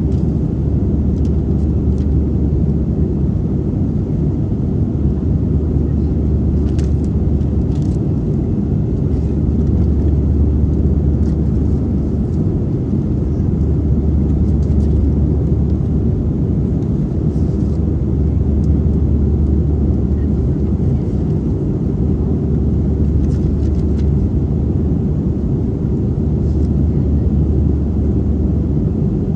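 Steady drone of an Airbus A320-family jet airliner in flight, engine noise and rushing air heard inside the passenger cabin as a deep, even rumble.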